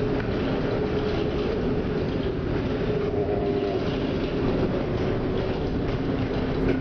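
A ship's steady low rumble with a constant droning hum running underneath.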